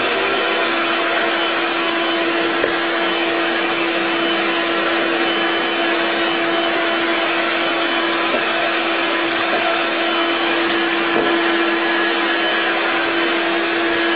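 Stick vacuum cleaner running steadily: a constant rush of air with one steady motor tone, as its nozzle is passed over a cat's fur.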